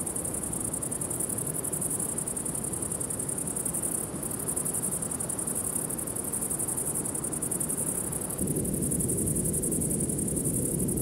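Steady high-pitched insect chirring, a savanna insect chorus, over a low ambient drone that grows louder and fuller about eight seconds in.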